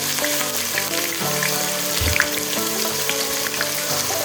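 Ground onion paste sizzling steadily in hot oil with whole spices, with small crackles through the hiss. Background music plays underneath.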